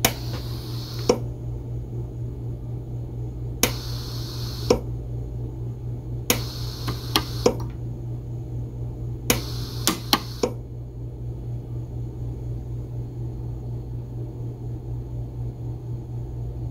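Micro pulse arc welder firing on 0.0098-inch 304 stainless steel wire with a 0.5 mm electrode: four short stretches of hissing, each about a second long, marked by sharp snaps of the weld pulses, over a steady low hum.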